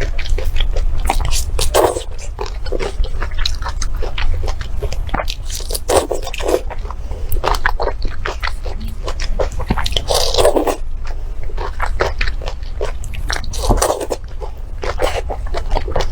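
Close-miked eating sounds: repeated biting and chewing with crunches and wet mouth noises, over a steady low hum.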